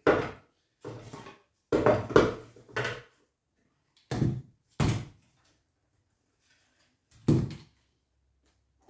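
Corded electric brad nailer firing brads into a wooden beehive frame on a wooden board: about six sharp knocks at irregular intervals, with silent gaps between.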